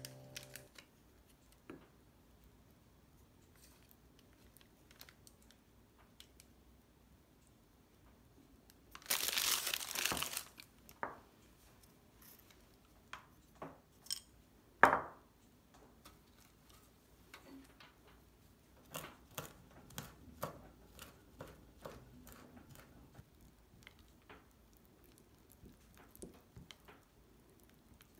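Kitchen handling sounds while sour cream, salt and minced thyme are put into a small ceramic bowl and mixed. A rustling burst of about a second and a half comes about a third of the way in, and a single sharp tap near halfway is the loudest moment. Scattered light clicks and taps follow as a silicone spatula works the mixture in the bowl.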